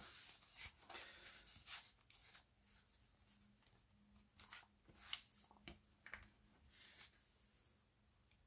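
Faint rustling and a few soft knocks as a fabric notebook cover and the paper notebook inside it are handled.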